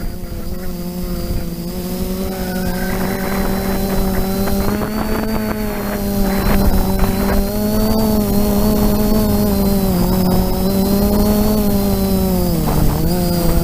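Hoverthings Flip FPV quadcopter's four brushless motors (KEDA 2210 1200kv) and 9-inch APC propellers in flight, a steady buzzing hum heard from the onboard camera. The pitch wavers slightly as the throttle changes and dips briefly near the end before coming back up.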